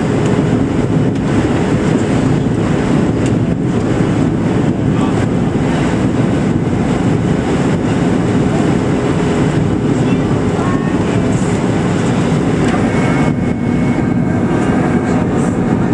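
Steady cabin noise of a Boeing 737-700 airliner on its landing approach: the CFM56 engines and the rush of airflow make a loud, even low rumble with a steady hum through it, heard from inside the passenger cabin.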